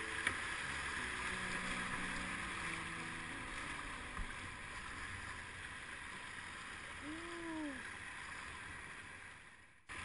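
Fast, shallow river water rushing over rocks and riffles around an open canoe, a steady hiss.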